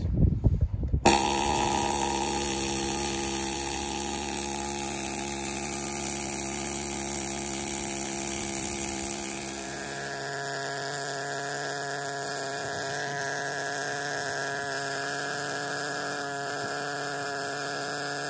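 Pneumatic needle scaler running with a steady buzz as its needles chip layers of old paint and factory filler off the cast-iron ram of a Bridgeport mill. It starts about a second in, and its tone changes slightly about ten seconds in.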